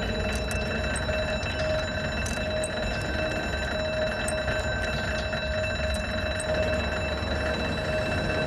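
A steady electronic ringing tone, several pitches held together with a slight pulsing in the lowest, over a low rumble.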